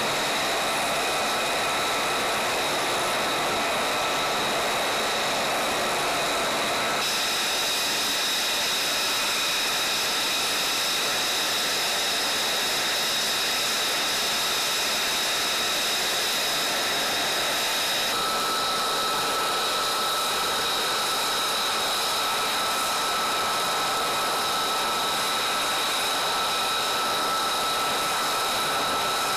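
F-35A Lightning II jet engine idling on the ground: a steady, loud rush with a high whine. The tone of the whine shifts abruptly about 7 and 18 seconds in.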